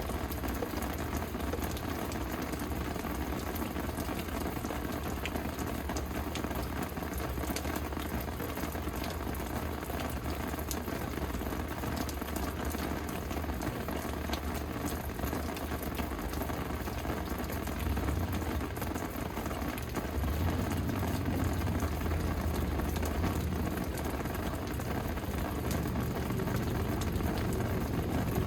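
Steady rain, with many individual drops ticking on surfaces. A low rumble runs underneath and grows louder about two-thirds of the way through.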